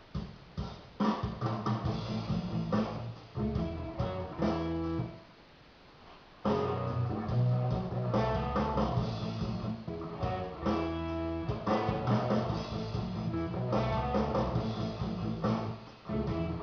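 Background guitar music. It drops away about five seconds in and comes back loud a second and a half later.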